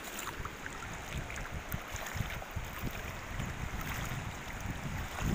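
Shallow river water running over a stony bed, with wind buffeting the phone's microphone in uneven low rumbles.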